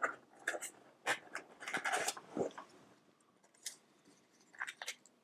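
Light clicks and short rustles of packaging being handled as a power cord is taken out of its box, with a quiet pause in the middle and a few more clicks near the end.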